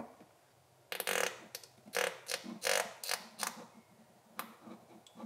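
Thick clear shampoo being poured from an upturned plastic shampoo bottle into an empty plastic water bottle. It makes a run of short noisy sounds, about seven of them, starting about a second in and spread over three and a half seconds.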